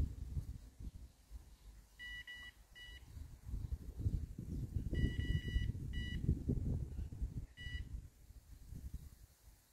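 Electronic carp bite alarm beeping in irregular bursts: a few short beeps, then a longer run of tones about five seconds in, and single beeps after. The bursts signal line being drawn through the alarm. A low rumble on the microphone runs underneath.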